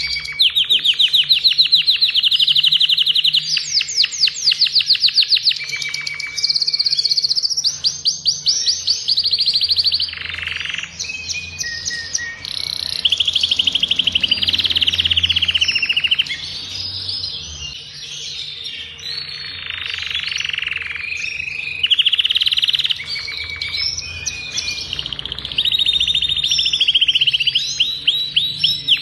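Adult male domestic canary singing nonstop in long chains of rapid trills and rolls, switching to a new phrase every few seconds.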